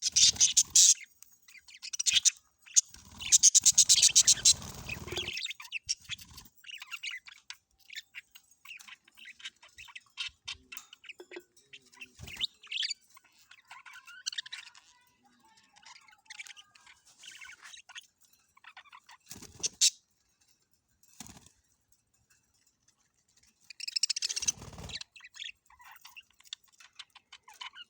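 Budgerigars chirping and chattering in irregular bursts, loudest in the first few seconds and again near the end, with a quiet spell about twenty seconds in.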